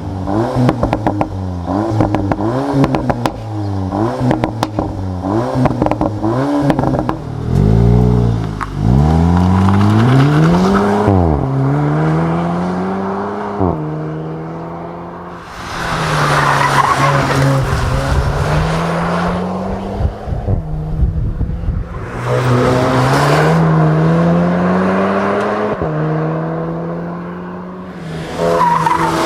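Exhaust of a Volkswagen 2.0-litre turbocharged four-cylinder: revved in quick blips with crackles and pops for the first several seconds, then one long rev, then accelerating through several upshifts, the pitch climbing and falling back at each gear change.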